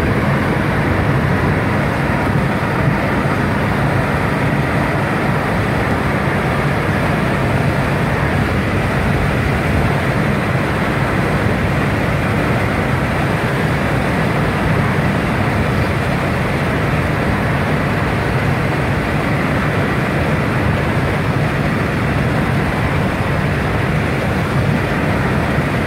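Steady road noise heard inside a car driving at speed: engine drone with tyre and wind noise.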